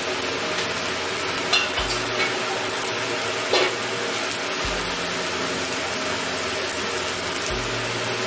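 Wok of water with chicken drumsticks heating toward the boil on an induction cooktop: a steady hiss from the water, with a low hum from the cooktop switching on about every three seconds. A few short clinks come between one and a half and three and a half seconds in.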